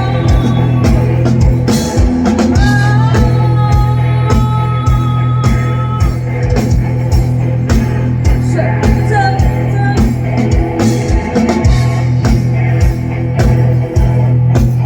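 Teenage school rock band playing a cover song live: drum kit keeping a steady beat under a deep held bass, with guitar and a singer's voice on top.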